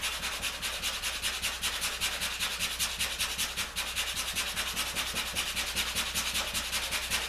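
A hand file rasping on a cedar canoe plank in quick, even back-and-forth strokes, filing the plank down so it fits.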